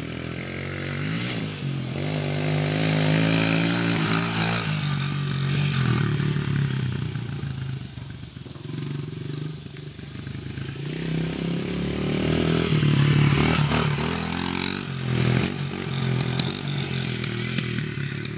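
A child's small dirt bike engine revving and easing off as it rides around, its pitch climbing and dropping again and again with throttle and gear changes. It grows louder twice as the bike comes near.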